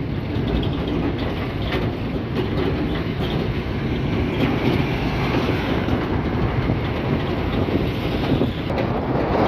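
Steady engine and road noise inside a moving vehicle's cab on a highway.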